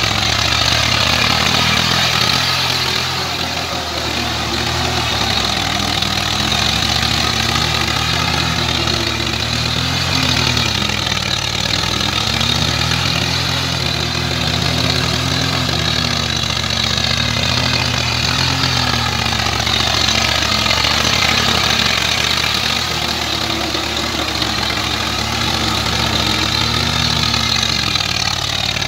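Swaraj 744 FE tractor's three-cylinder diesel engine running under load while it pulls a rotavator through flooded paddy mud. Its note rises and falls every couple of seconds.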